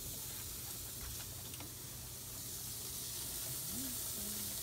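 Steady hiss of hamburgers sizzling on a grill, with a faint low wavering tone that rises and falls near the end.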